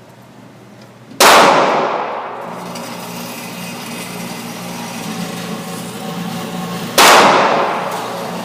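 Two gunshots about six seconds apart, each sharp and loud with a long ringing tail of reverberation.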